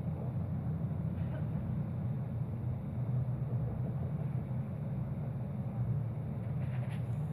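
Steady low rumble of a moving passenger train heard from inside the carriage.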